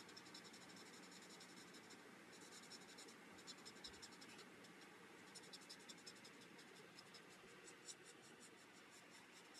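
Faint scratching of a felt-tip alcohol marker nib on cardstock as it colours in quick, short back-and-forth strokes, coming in runs with brief pauses between them.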